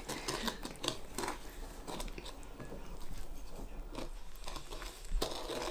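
Egg, vanilla and sugar being stirred by hand in a mixing bowl: the utensil scrapes and clicks irregularly against the bowl through the wet, gritty mixture, with one louder knock near the end.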